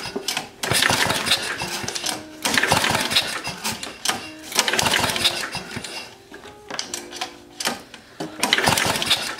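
Tecumseh small engine being pull-started by its recoil starter, cranked hard several times at about one pull every two seconds, each pull a short burst of fast rattling as the engine turns over without catching. The engine is primed with straight gas, and the owner finds it hard to pull because of its high compression.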